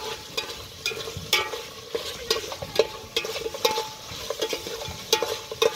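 Metal ladle stirring meat in an aluminium pot, clanking and scraping against the pot about twice a second so the pot rings, with the meat sizzling as it fries.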